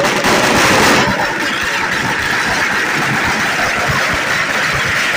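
Ground firework fountain spraying sparks, a steady hiss with a few scattered pops, loudest in the first second.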